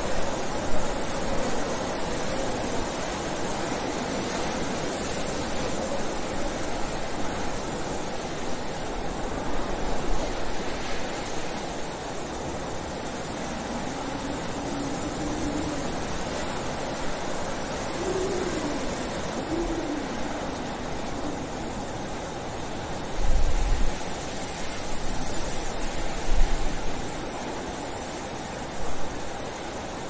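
Blizzard wind blowing steadily with a rushing hiss. A low howl rises and falls in pitch about halfway through, and a few stronger low gusts come near the end.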